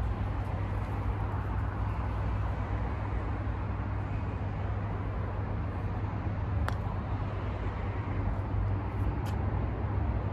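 A putter strikes a mini-golf ball once with a sharp click about two-thirds of the way through, over a steady low background rumble.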